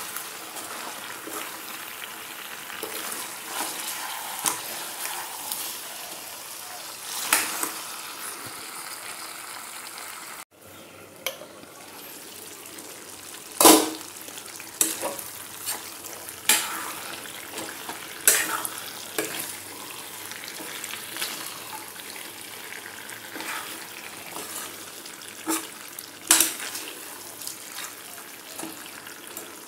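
Pork stew with potatoes and peppers sizzling in a metal pot while a metal spoon stirs it. The spoon scrapes and clinks against the pot every few seconds, with one especially loud clink about halfway through.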